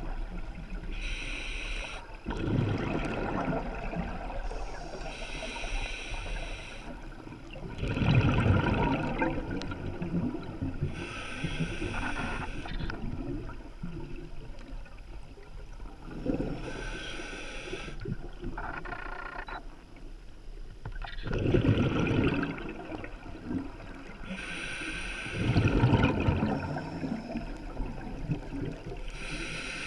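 A scuba diver breathing through an open-circuit regulator, underwater. Every few seconds there is a hissing inhale through the regulator, and each is followed by a low, bubbling rush of exhaled air.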